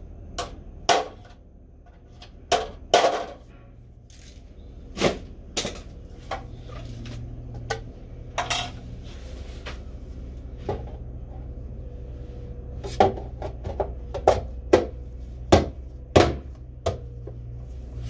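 Hammer tapping a tool against a door closer's cover to knock out a section, several sharp strikes in the first three seconds. Then a series of knocks and clicks as the cover is fitted onto the closer, in a quick run near the end.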